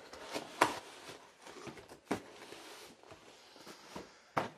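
Cardboard being handled as a shipping box is opened and the inner cardboard boxes are lifted out: scraping and rustling of cardboard with sharp knocks, the loudest about half a second in, another about two seconds in and one near the end.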